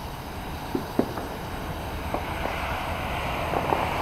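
Distant aerial fireworks going off: a scattering of short pops and bangs, the loudest about a second in, over a steady rush of wind on the microphone that grows a little louder near the end.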